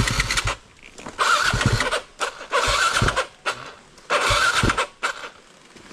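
Dirt bike engine revved in short throttle bursts, four in about five seconds and a brief fifth near the end, as the rider crawls the bike through a difficult trail section.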